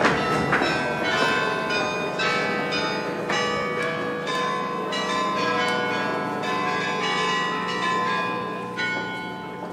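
Church bells ringing, struck notes following one another about twice a second and ringing on into each other, slowly fading toward the end.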